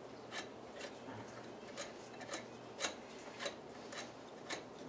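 A lug nut being turned by hand onto a wheel stud through a plastic-shell rear wheel weight: faint, irregular little clicks and rubbing, about a dozen over the few seconds.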